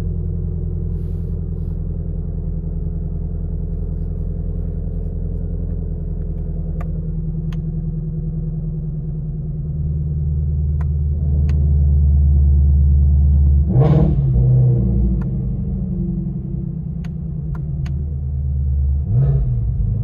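Ford Shelby GT350R's 5.2-litre flat-plane-crank V8 idling during its cold-start warm-up, heard from inside the cabin as a steady low drone that grows louder about ten seconds in. The engine is briefly revved twice, the pitch rising and falling, about two-thirds of the way through and again near the end. A few light clicks sound in between.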